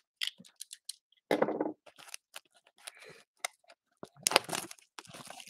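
A cardboard trading-card box being opened by hand: a run of crackles and clicks from the cardboard and its wrapping, with louder rips about one and a half seconds in and again about four and a half seconds in.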